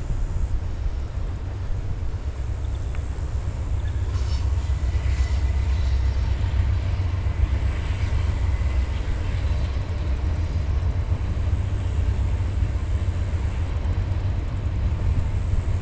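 Norfolk Southern diesel-electric locomotives pulling a double-stack container train over a steel bridge: a deep, steady engine rumble that swells as the two units pass, with faint rail noise.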